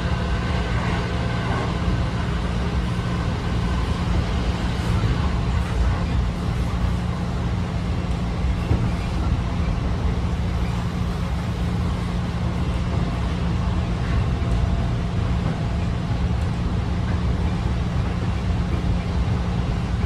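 Running noise heard inside a JR 211 series electric multiple-unit car at speed: a steady low rumble of wheels on rail with a constant low hum, and a few faint knocks now and then.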